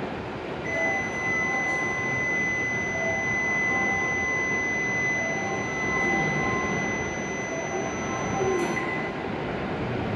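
Electronic departure signal on a Shinkansen platform: a steady high tone held for about eight seconds, with short quieter tones underneath, over the hum of the station and the waiting train.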